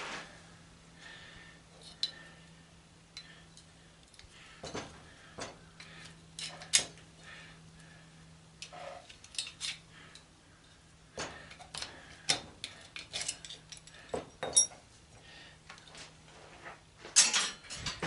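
Small metal parts and hand tools clinking, tapping and scraping as an antenna rotator is taken apart by hand. Irregular sharp clicks and clatters come in several clusters, over a faint steady hum.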